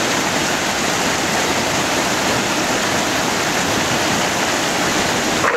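Fast, turbulent glacial meltwater stream rushing over rocks, a loud steady sound of running water.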